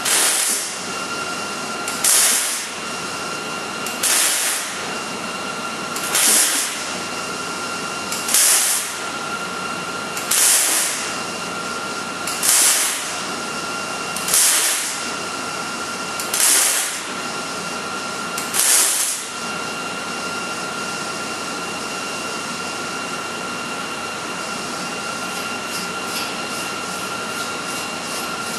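MIG welder laying short stitch-weld bursts on a steel frame rail end: about ten bursts of arc, each roughly half a second long and about two seconds apart, stopping a little over halfway through. A steady hiss with a thin high whine runs underneath throughout.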